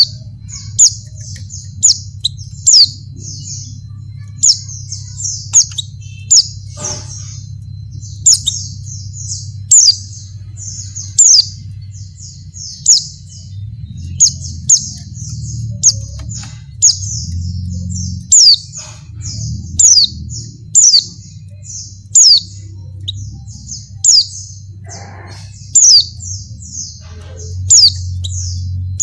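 Female white-eye (pleci) calling in breeding condition, the call used to lure males into answering. It is a fast, continuous run of high chirps, broken every second or two by a loud, sharp down-slurred note, over a steady low hum.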